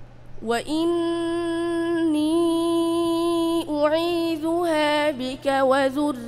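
A boy's voice reciting the Quran in the melodic tajweed style. About half a second in, he holds one long steady note for about three seconds, then moves into quick ornamented melodic turns.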